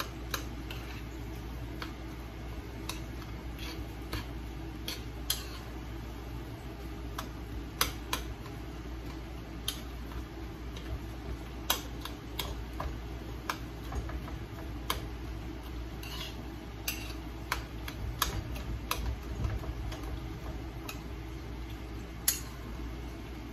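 A utensil clicking and scraping against a skillet as a tomato-based stewed salt cod is stirred: irregular taps, a couple of them sharper, over a steady low hum.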